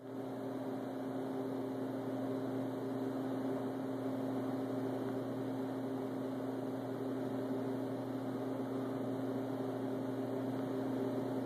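Steady electrical hum with several low held tones over a faint noisy background, unchanging throughout.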